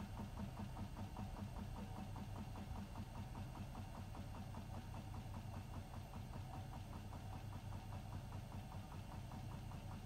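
Hotpoint WMFUG 942 front-loading washing machine running, a steady low motor hum with fast, even ticking as the drum turns.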